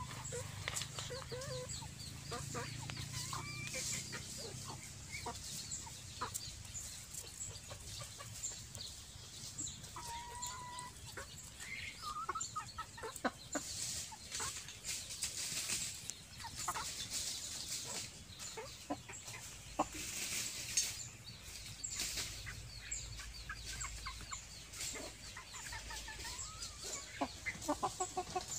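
Chickens clucking on and off in short scattered calls, over a steady background of fine high chirping ticks, with a quick run of sharp clucks near the end.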